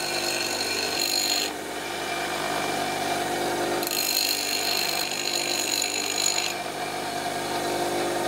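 Bench grinder running with a steady motor hum while a used Japanese chisel (nomi) is pressed to the spinning wheel in two spells. The steel-on-stone grinding hiss lasts about the first second and a half, then again from about four to six and a half seconds in, cutting off each time the blade is lifted. The grinding puts a shallow dip into the chisel's back so it flattens faster when sharpened.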